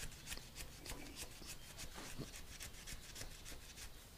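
Quick, even scrubbing strokes, about three or four a second, rubbing degreaser over the painted metal of a tool and cutter grinder to lift dirt and added paint.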